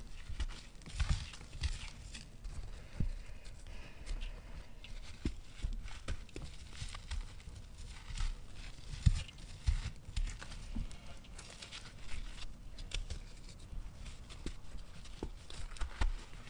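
Hands crushing dry, gritty sand-and-cement clumps and letting the grit trickle through the fingers: uneven crumbling and crunching with soft low thuds, never quite stopping.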